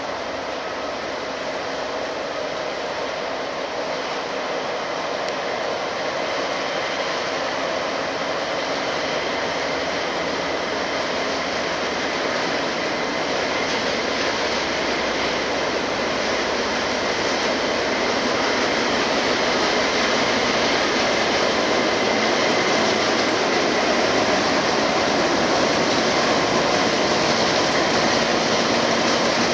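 Class 08 diesel shunting locomotive 08605, with its English Electric six-cylinder diesel engine, running steadily as it hauls a train of wagons slowly towards the listener, growing gradually louder as it approaches.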